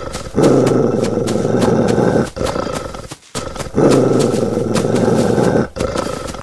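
Dog growling: two long, loud growls of about two seconds each, with quieter growling between them.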